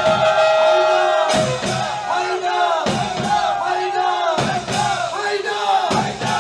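A crowd of mourners shouting and chanting together in unison, with sharp strikes about every second and a half.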